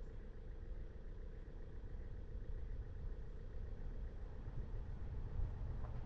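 Car engine and tyre noise: a steady low rumble with a faint even hum above it.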